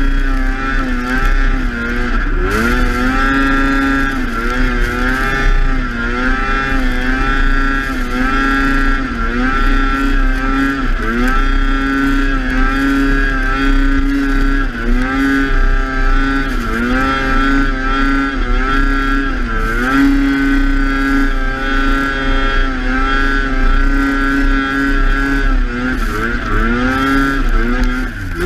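Snowmobile engine running hard through deep powder, its pitch dropping and climbing back again and again as the throttle is eased and reopened.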